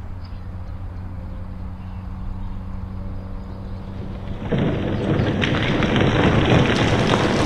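A steady low hum, then a little past halfway a sudden loud rumbling crash of a rockslide, boulders breaking away and tumbling, with many sharp rock hits clattering through the rumble.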